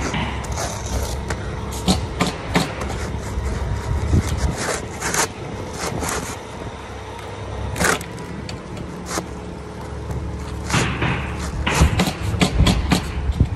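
Roofing work by hand on shingles and flashing: irregular scrapes and sharp knocks and taps over a steady low rumble.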